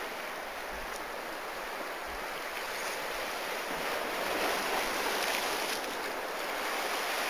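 Sea surf washing onto the shore, a steady rushing noise that swells slightly about four to five seconds in.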